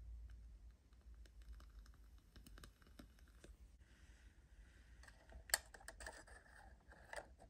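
Faint small clicks and taps of handling miniature kitchenware, then a small metal tray scraping and clinking as it slides into a tiny tin oven, with one sharp click about five and a half seconds in.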